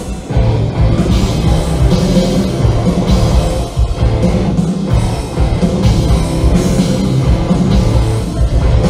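A rock band playing live at full volume: electric guitars and a driving drum kit, with no vocals in this stretch.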